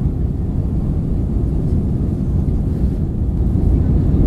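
Airbus A320 jet engines and airflow heard inside the passenger cabin as a steady low rumble, in the climb after takeoff.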